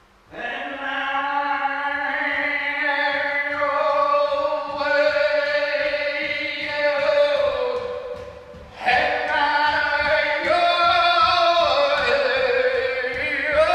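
A single voice holding a long, steady sung drone, the vowel slowly shifting so that different overtones ring out above the held note. It breaks off for a breath about eight and a half seconds in, then takes up a similar held tone again.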